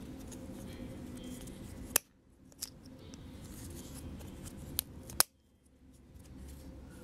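Small plastic and metal RC car parts clicking and knocking as they are handled while a suspension hub is removed: a handful of sharp clicks, the loudest about two seconds in and about five seconds in, over a steady low hum.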